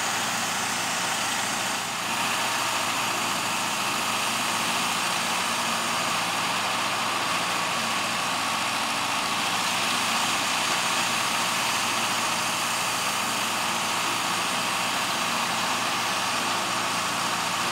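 Heavy construction machinery, an excavator and a dump truck, with diesel engines idling in a steady, unchanging drone.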